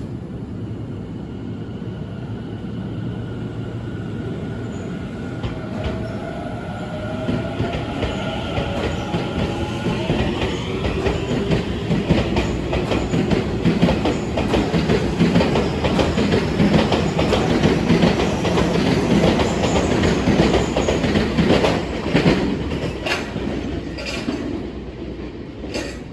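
Tobu 50090-series electric train pulling away: the motors' whine rises in pitch over the first several seconds. Then the cars pass with a loud rumble and wheels clattering over rail joints, a few sharp clacks near the end as it moves off.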